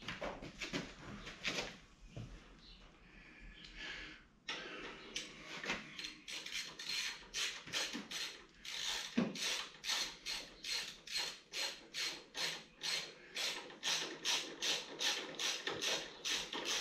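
A ratchet wrench clicking as the handlebar clamp bolts on a Harley Road King are tightened. A few seconds in, it settles into a steady run of evenly spaced clicks.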